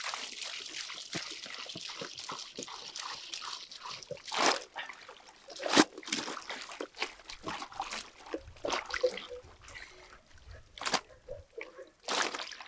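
Milk being poured through a strainer: a steady trickle for about the first four seconds, then scattered splashes and knocks.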